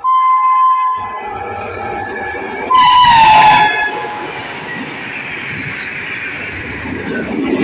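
Indian Railways locomotive horn blowing twice as an express train passes at speed: a short steady blast, then a louder, longer one whose pitch drops as the engine goes by. Between and after the blasts comes the steady rush and rattle of the train on the rails.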